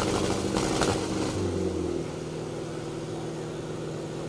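Tractor engines running at high revs; the pitch climbs about a second and a half in, then holds steady.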